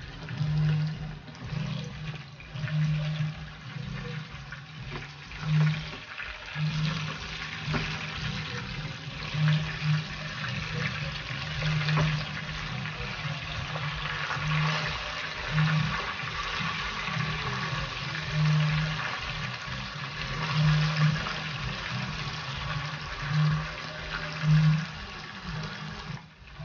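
Hot oil sizzling steadily as pieces of food fry in a pan, with a low hum underneath that swells every second or two.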